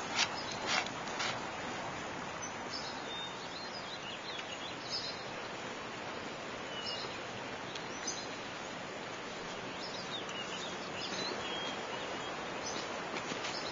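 Outdoor ambience: a steady hiss of background noise with scattered short, high bird chirps, and a few sharp clicks in the first second or so.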